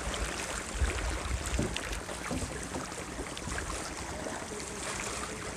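Wind rumbling on the microphone over the wash of lake water lapping at the shore, with faint voices from the people on the boat a little past four seconds in.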